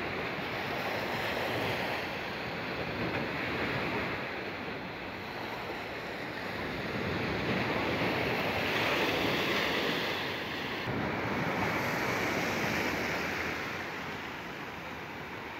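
Sea waves washing on the shore, a steady rushing hiss that swells and eases in slow surges, with wind buffeting the microphone.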